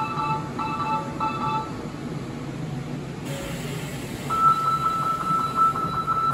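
Three-note electronic door chime, played three times, over the steady hum of a Fukuoka City Subway 3000A train standing at the platform with its doors open. About four seconds in, a single steady, high electronic tone starts and keeps sounding.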